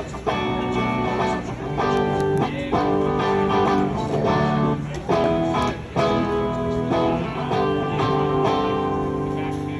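A guitar strumming sustained chords during a band's sound check, with short breaks between phrases.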